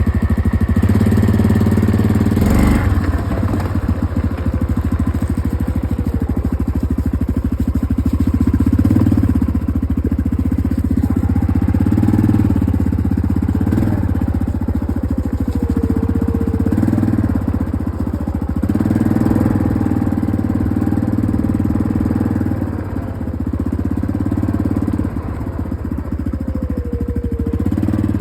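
ATV engine running steadily at idle, with a sharp knock about two and a half seconds in.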